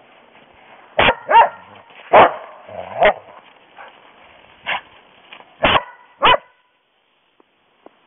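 A dog barking: about seven sharp barks spread over five seconds, some in quick pairs. After the last bark the sound cuts off.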